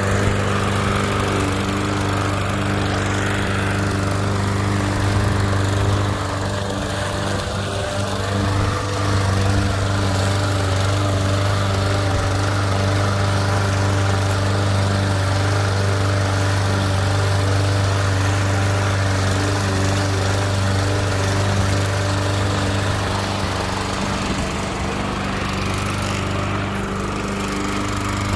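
Walk-behind gas lawn mower engine running steadily while cutting grass, a constant low hum.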